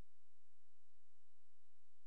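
Steady low electrical hum with faint hiss, unchanging, and no engine, tyre or road sound: the dash camera's audio recording is switched off.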